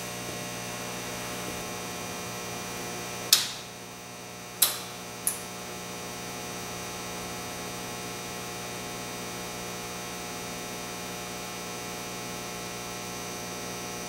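Steady electrical mains hum, with three sharp clicks about three to five seconds in as the furnace's temperature controllers switch on.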